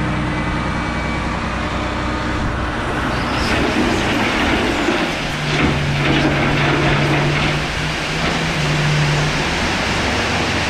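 Heavy dump truck's diesel engine running while crushed gravel, 4-inch stone and smaller, slides and rattles out of the raised body over the tailgate. The engine note gets stronger for a few seconds in the middle.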